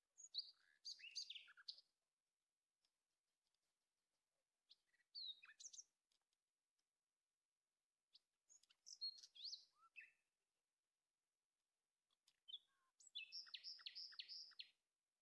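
A small songbird singing in four short phrases of high chirps and quick pitch glides, a few seconds apart; the last phrase is a fast run of about five repeated notes.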